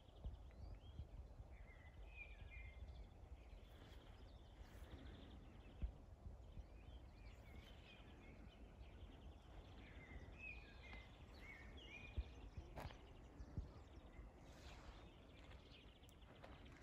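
Near silence outdoors: a low wind rumble on the microphone, with faint bird chirps twice (a couple of seconds in and about ten seconds in) and a few soft clicks.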